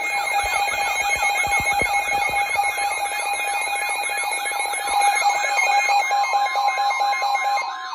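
Emergency Alert System attention signal between warning messages: a steady alarm tone layered with rapidly repeating warbling, siren-like sweeps, about three a second. The sweeps break off near the end, leaving one steady tone.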